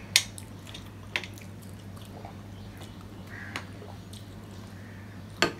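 Close-up eating sounds from a meal eaten by hand off steel plates: soft mouth and finger sounds with a few sharp clicks, the loudest near the end, over a steady low hum.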